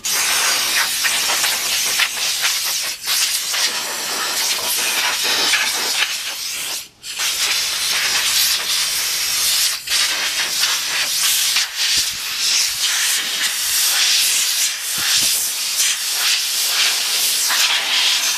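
Compressed-air blow gun at about 125 psi hissing loudly as it blasts sanding dust off a motorcycle wheel, with one brief break about seven seconds in.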